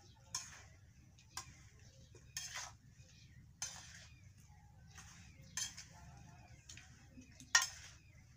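Flat metal spatula scraping and turning spiced badhar (monkey jack) pieces in a metal kadhai to mix the pickle, scraping against the pan about once a second, with the sharpest scrape near the end.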